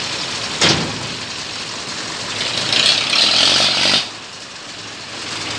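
Large diesel engine running steadily at idle, growing louder with a hiss for about a second from around the three-second mark, then dropping back suddenly. A single sharp knock about half a second in, as a steel loading ramp is handled.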